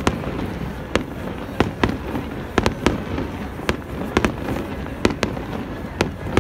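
Fireworks display: about a dozen sharp bangs of shells bursting, spaced irregularly, some in quick pairs.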